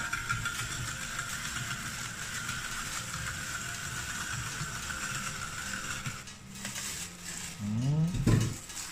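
Hand-cranked Saladmaster food processor turning, its gears clicking and whirring as the cone slices cucumber, stopping about six seconds in. Near the end a brief louder rising sound.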